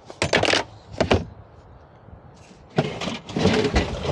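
Gear being shifted and pulled out of a motorhome's rear storage compartment: a few short bursts of clattering and rustling, then a longer stretch near the end.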